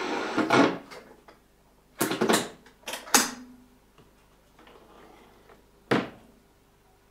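1930 Siemens 52W valve radio being retuned between stations: its programme cuts out, and there are a few short sharp bursts of static and noise as the dial passes other signals, with a brief low steady tone just after three seconds and quiet in between.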